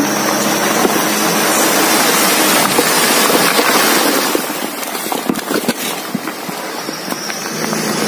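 A load of sand and earth sliding out of a tipped dump truck bed in a loud, steady rushing pour, easing off about four seconds in to a scattered clatter of stones and lumps. The truck's engine runs underneath.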